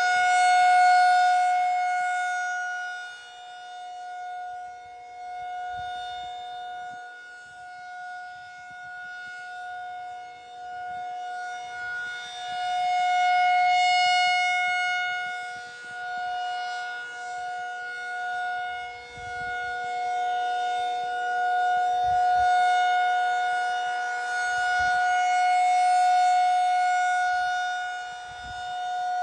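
Federal Signal 2001 rotating electromechanical tornado siren sounding a steady tone at a constant pitch. Its loudness swells and fades slowly as the rotating horn sweeps toward and away from the listener.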